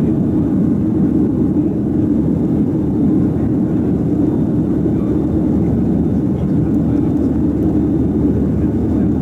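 Steady cabin noise of a Boeing 737-700 climbing after takeoff: its wing-mounted CFM56-7B turbofans and the airflow heard from a window seat over the wing, an even low rumble.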